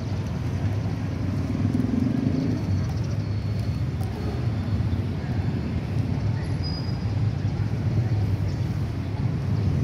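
Steady street ambience: the constant rumble of road traffic, with faint voices mixed in.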